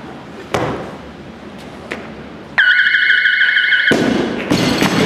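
Weightlifting referees' down-signal buzzer, a steady electronic tone of about a second telling the lifter the jerk is locked out and he may lower the bar. Then the barbell loaded with bumper plates is dropped onto the platform with a crash and a bounce.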